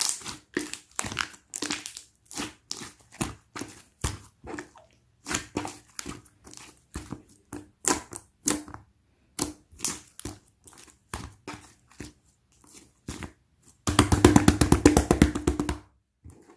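Pink pearl marbled slime being squished and pressed by hand, making irregular sticky clicks and pops. Near the end comes about two seconds of rapid continuous popping that stops suddenly.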